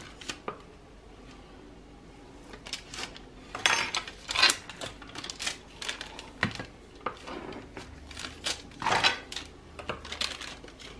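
Long kitchen knife sawing down through a baked apple charlotte, scraping and knocking through the baking paper onto the metal baking tray beneath in a string of irregular strokes, with the loudest ones about four seconds in and again near nine seconds.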